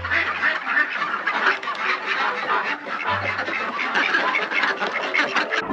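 A flock of ducks quacking over one another in a dense, busy chatter as they pour out of their coop.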